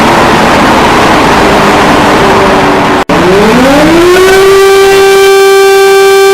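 A loud, harsh rushing noise with faint low tones runs for about three seconds and cuts off abruptly. An alarm siren tone then rises in pitch for about a second and holds a steady, rich pitch.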